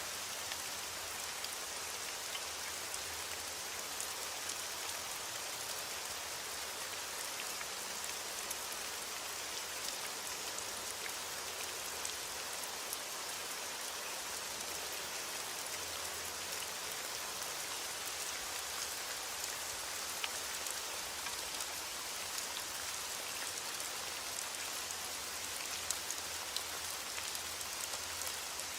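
Steady rain falling, with many small drops ticking and pattering on a surface; no thunder.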